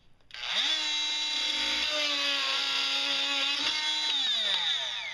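Dremel Multi-Max MM40 oscillating multi-tool with a flush-cut metal blade starting up and running steadily while cutting a nail off flush with the wood, going through it easily. Near the end it is switched off and winds down, its pitch falling.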